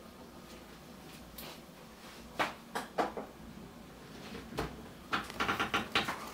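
Scattered light knocks and clicks of things being handled in a kitchen, with a quick run of clicks near the end.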